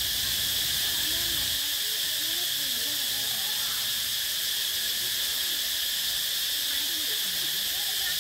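A chorus of insects buzzing steadily and high-pitched, with no break.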